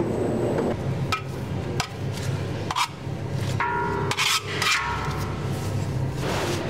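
Dough being pulled and scraped by hand from a stainless-steel spiral mixer bowl: scattered knocks and rubbing against the steel, with a squeak about four seconds in, over a steady low machine hum.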